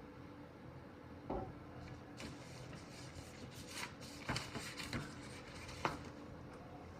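A few light taps and clicks with soft rubbing and scraping: objects being handled on a workbench.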